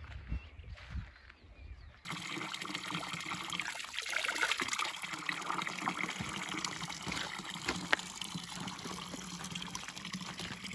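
Heavy rain falling: a dense, steady patter of drops that starts abruptly about two seconds in.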